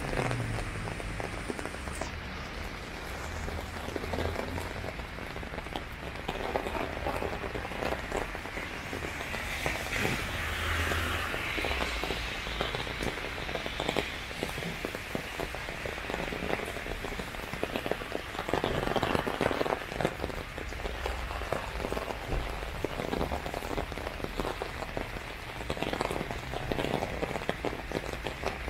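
Steady rain falling on an umbrella overhead, a dense run of close drop hits over the even hiss of rain on wet pavement.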